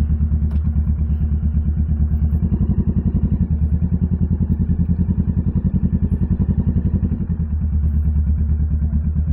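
Kawasaki Z650's parallel-twin engine running at low revs, with a steady low pulsing exhaust note, as the motorcycle pulls away from a standstill and rolls along slowly.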